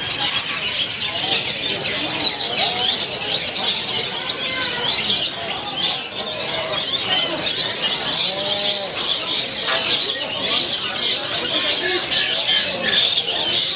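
Dense, unbroken chorus of many caged songbirds singing at once, a long-tailed shrike (cendet) among them, with faint human voices beneath.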